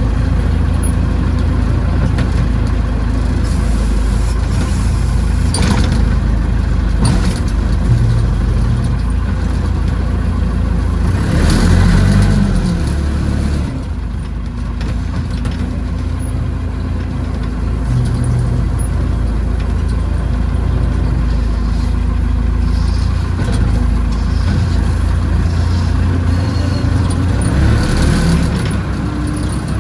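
Tractor-backhoe engine running steadily under work, with a brief rev about twelve seconds in and a few sharp knocks from the machine.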